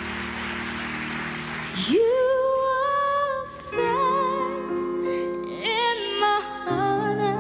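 Slow, tender background music. About two seconds in, a melody of long held notes with vibrato enters over soft sustained chords, as a faint hiss fades out.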